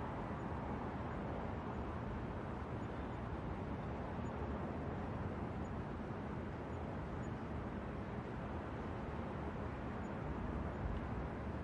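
New York City night-time ambience from a rooftop: a steady, even hum of city traffic with no distinct events.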